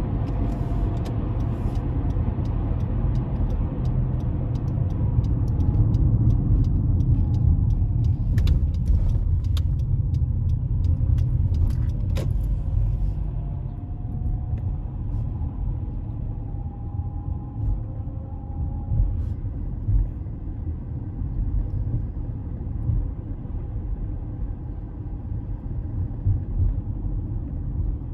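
Steady road and engine rumble inside a moving car's cabin, picked up by a phone on the dashboard, with a scatter of faint clicks in the first half.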